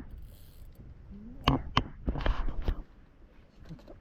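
Fishing reel being cranked while bringing in a hooked fish, a light mechanical ratcheting, with two sharp clicks about a second and a half in and a short scraping rustle just after two seconds.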